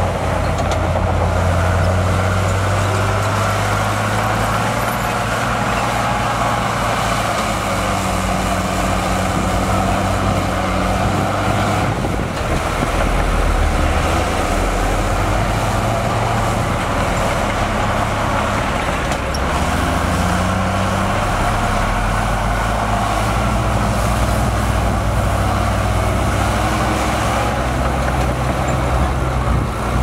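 Heavy earthmoving machine's diesel engine running steadily under working load, its low drone shifting in pitch several times as the load changes.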